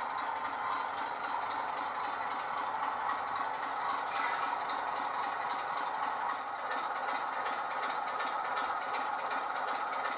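Class 25 diesel engine sound from SWD's U-Drive sound file, played by the sound decoder in a Bachmann model locomotive through a double iPhone mini speaker. The engine runs steadily at low power while the model rolls in and comes to a stand about halfway through.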